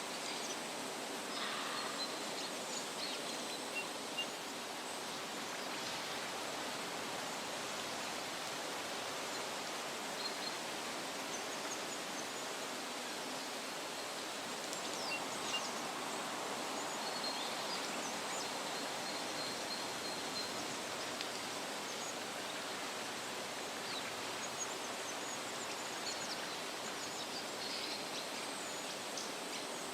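Forest ambience: a steady rushing hiss with occasional faint, short bird chirps.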